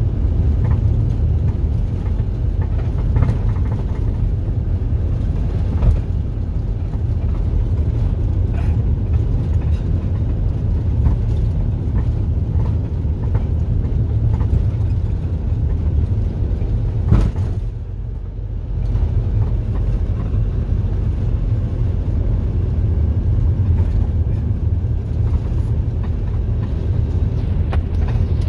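Steady low rumble of a road vehicle in motion, with a sharp knock about seventeen seconds in and a brief drop in level just after it.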